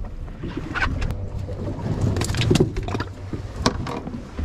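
Fishing boat at sea: a steady low rumble with several sharp knocks and clatters of gear on deck, the loudest about two and a half seconds in.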